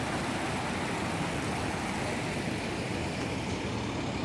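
Steady rushing of floodwater running across a highway, an even noise with no breaks.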